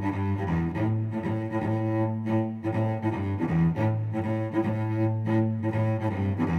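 Background music of slow, held low notes that change every second or two.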